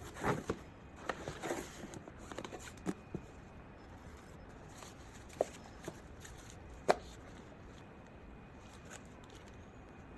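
Handling sounds from unboxing a wallet-on-chain bag: a cluster of rustles and clicks in the first two seconds, then a few scattered sharp clicks and taps, the loudest about seven seconds in.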